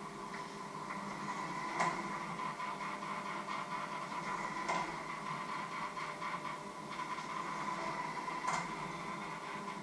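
Electric hand mixer running steadily, a constant motor hum, with three sharp clicks as the beaters knock against the metal bowl.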